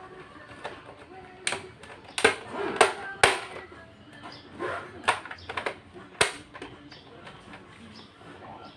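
Irregular sharp clicks and knocks of parts being handled and fitted while a computer is reassembled, about half a dozen spread over several seconds.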